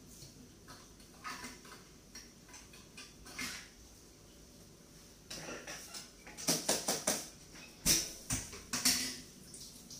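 Plates and cutlery clinking and knocking as dishes are washed at a sink, with a run of louder clatter in the second half.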